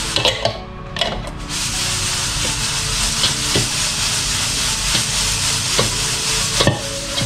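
Freshly roasted coffee beans being shaken in a stainless steel mesh strainer to cool them: a steady rustling hiss of beans sliding and tumbling over the mesh, with scattered light clicks, dropping away briefly about a second in.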